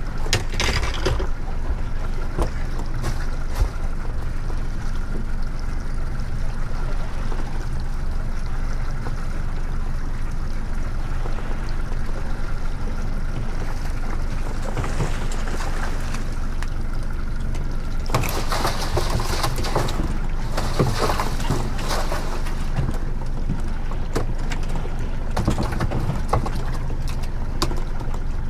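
Yamaha 115 outboard motor running steadily at low trolling speed, a constant low hum. About eighteen seconds in, a few seconds of louder rushing noise come over it.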